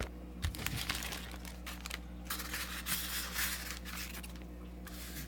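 Packaging being handled, crinkling and rustling in several irregular spells.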